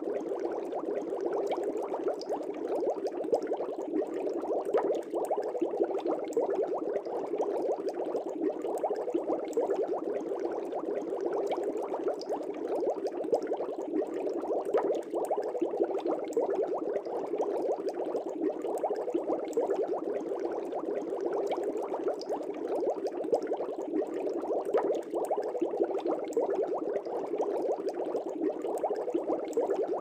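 Aquarium air bubbles rising through water: a steady, dense bubbling that does not change.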